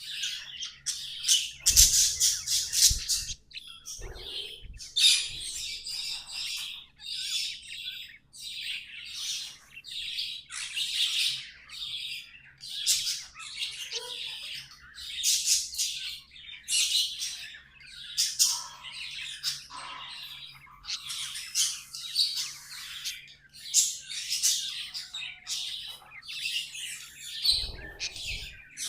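Pet budgerigars chattering and warbling: a dense, almost unbroken run of short high-pitched calls, with a few low thumps about two seconds in and near the end.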